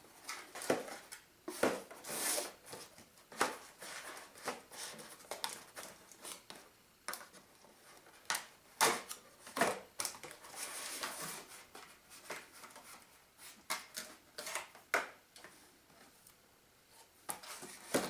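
Irregular clicks, scrapes and rustling of a toy's packaging being handled as the tie-downs holding the car in its box are undone.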